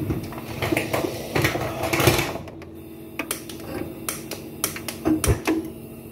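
Gas hob burner being lit: some handling and hiss first, then a run of sharp ticking clicks from the spark igniter until the burner catches near the end.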